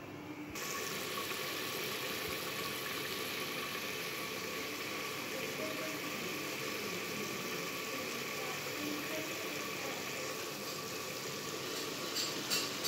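Chicken in gravy cooking in a pot on the stove, a steady hiss. Near the end a rhythmic rattling pulse sets in, about two to three beats a second.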